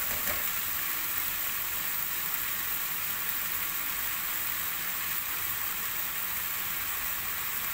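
Minced beef frying in a pan, with a steady sizzle.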